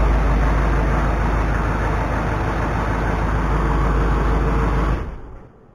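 The 2009 GMC Sierra 2500HD's Duramax V8 turbodiesel running steadily, then shutting off about five seconds in, its sound dying away within half a second.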